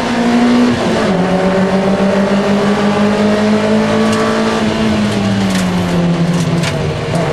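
MGF race car's engine heard from inside the cabin, running hard. Its pitch drops sharply about a second in, holds, then falls away over the last couple of seconds. A few sharp ticks come in the second half.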